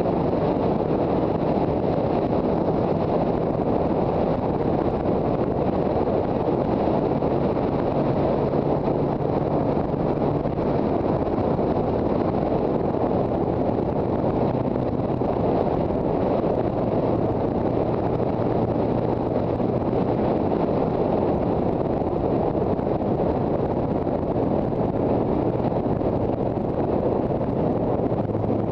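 Wind buffeting the microphone of a motorcycle at road speed, with the low drone of a Yamaha TZR250's two-stroke engine underneath, its pitch shifting a few times.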